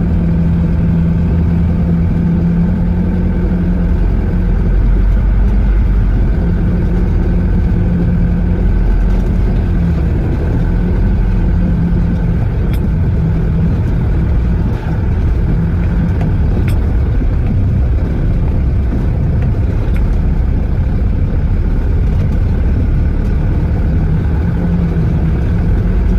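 Heavy diesel engine of an excavator or dump truck running steadily with a deep, even hum, and a few faint clicks.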